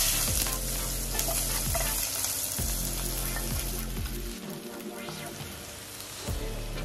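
Sliced onions sizzling as they fry in hot oil in a pan, stirred with a wooden spoon.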